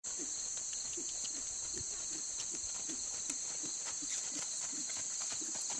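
A horse's hoofbeats on the sandy arena footing, a soft, even beat of about two and a half thuds a second. Over them is a steady, high insect drone, the loudest sound throughout.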